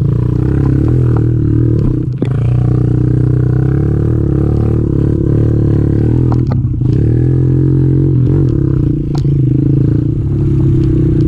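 Kawasaki KLX110 pit bike's small single-cylinder four-stroke engine running under throttle while riding a dirt trail, with a couple of brief drops as the throttle is eased, about two seconds in and again near nine seconds.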